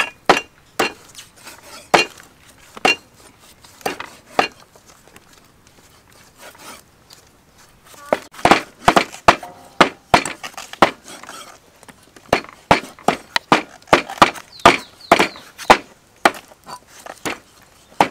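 Knife and cleaver strokes knocking on thick wooden chopping blocks as tomatoes are sliced and pork is chopped. The sharp knocks come about once a second at first, stop for a few seconds, then come several a second through the second half.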